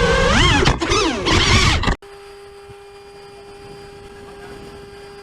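FPV racing-drone motors whining, rising and falling fast in pitch with the throttle over a loud rush of prop wash. The sound cuts off abruptly about two seconds in, leaving a much quieter steady hum with a constant tone.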